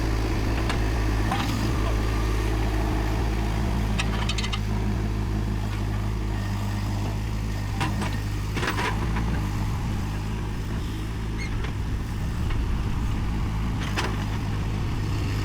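Rippa RS06 skid steer loader's engine running steadily under load while the loader works, with a few sharp knocks at intervals.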